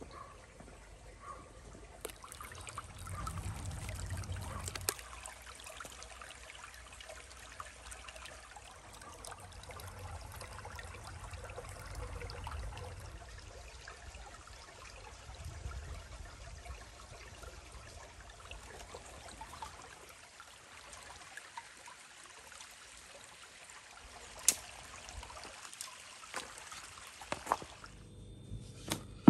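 Shallow stream trickling steadily over rocks, with a couple of sharp clicks late on.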